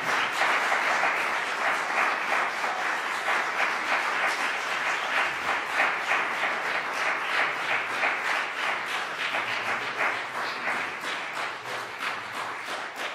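Audience applauding, a dense steady clapping that begins to thin and fade near the end.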